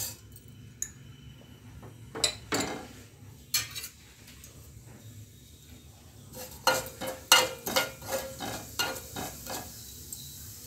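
Cumin and mustard seeds tipped into oil in a steel pot, then a metal spoon stirring them, clinking and scraping against the pot. There are a few scattered clicks at first, then a quick run of clinks in the second half.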